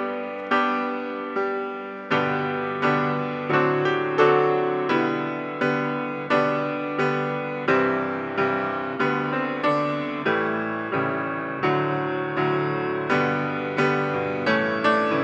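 Solo piano music, a note or chord struck about every half second, each ringing and fading away.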